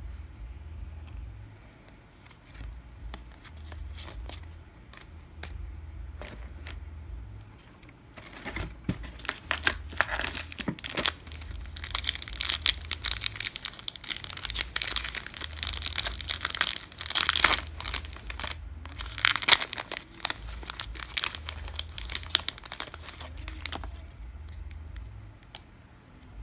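A baseball card pack wrapper being torn open and crumpled by hand: a few faint clicks at first, then about eight seconds in a long stretch of crinkling and tearing that dies down a couple of seconds before the end.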